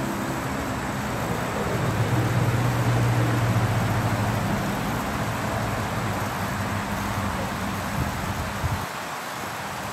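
Steady hiss of water spraying from a Nelson traveling tractor sprinkler, with a low motor hum that swells about two seconds in and fades away near the end.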